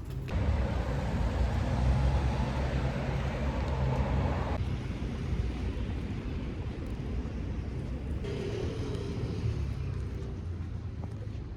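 Steady low rumble of a vehicle's road and engine noise, with abrupt changes in the sound about four and a half and eight seconds in.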